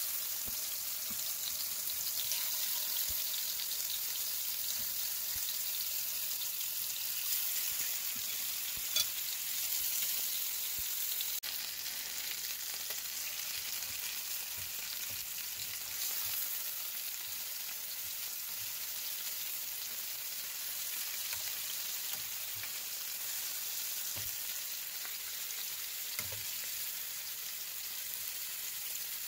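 Tandoori-marinated chicken drumsticks sizzling in hot oil in a pan over high heat: a steady frying hiss with scattered small crackles.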